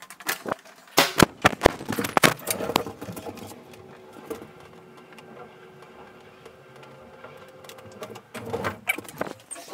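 Passenger lift in motion. A cluster of sharp clicks and knocks, then a steady mechanical hum with two faint steady tones for about five seconds, then a few more knocks near the end.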